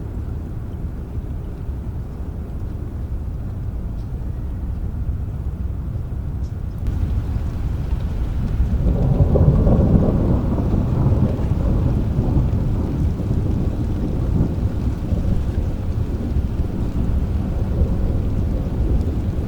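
Steady rain with a long low roll of thunder that swells about halfway through and slowly dies away.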